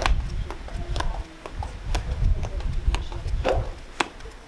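Running shoes landing on concrete steps in quick alternating step-jumps: a sharp footfall about twice a second, over a low rumble in the first second.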